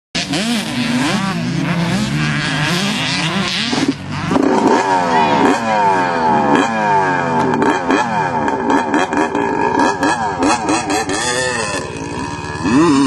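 Several dirt bike engines revving and riding at once, their pitches rising and falling over one another as they accelerate and shift. The sound cuts in suddenly and gets louder from about four seconds in.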